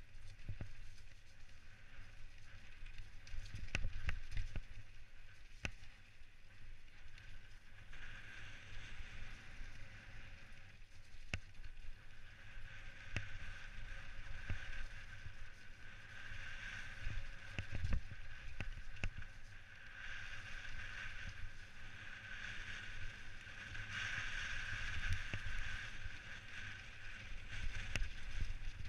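Specialized Stumpjumper mountain bike descending a wet dirt trail: tyres hissing over the wet surface, louder through the second half, with scattered knocks and clatters from the bike over bumps and wind rumbling on the helmet camera's microphone.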